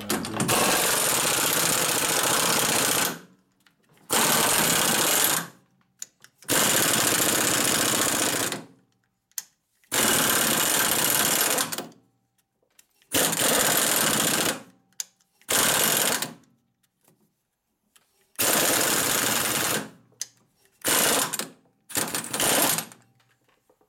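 Pneumatic impact wrench hammering in repeated trigger bursts of one to three seconds, about ten in all with short silences between, the last few brief. It is trying to break loose a nut locked on with red Loctite.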